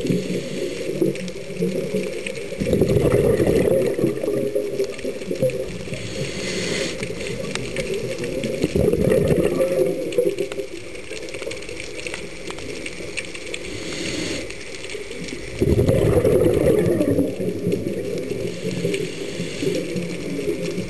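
Scuba diver's regulator breathing heard underwater: bursts of exhaled bubbles gurgle out every six or seven seconds, with quieter stretches between breaths.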